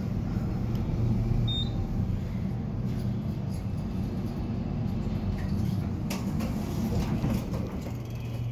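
Fujitec elevator car in motion, with a steady low hum heard inside the cab and a brief high beep about a second and a half in. Near the end the doors slide open with a few light knocks.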